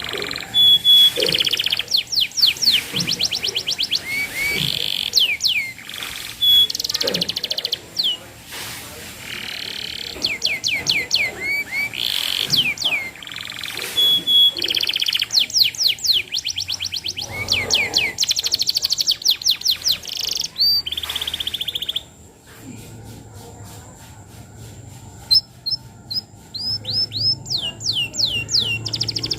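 Domestic canary singing hard, in fast trills of rapidly repeated sweeping notes and rolling phrases, with a short lull about three-quarters of the way through before the trills resume.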